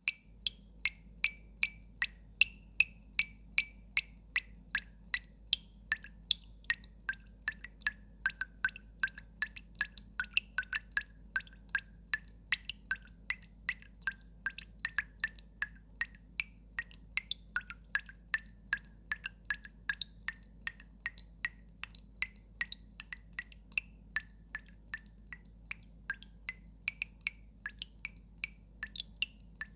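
Water drops falling one after another into water, each a short plink, about three to four a second, their pitch shifting from drop to drop.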